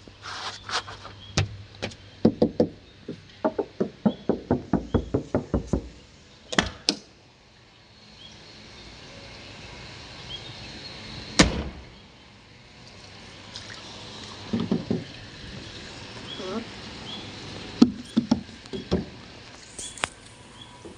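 A series of sharp knocks and clicks, coming in a quick run a few seconds in and then as scattered single knocks, over a faint short high chirp that repeats every second or so.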